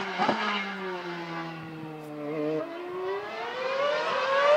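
Mercedes-powered Formula 1 car's V8 engine heard across the circuit. Its pitch sinks slowly as the car slows, then, about halfway through, rises again and gets louder as the car accelerates and comes closer.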